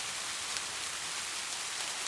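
Steady rainfall, an even hiss with scattered drops ticking on a surface.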